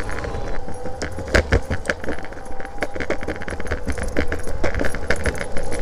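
Rapid metallic jingling and clinking, as of a running husky's collar tags and leash hardware, over a steady low rumble of wheels rolling fast on pavement.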